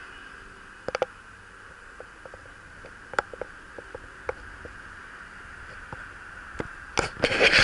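Bicycle rolling along a concrete path: a steady hiss of tyres and movement with scattered light, irregular clicks and rattles of the bike and its handlebar camera mount, and a louder burst of rustling and clicks about seven seconds in.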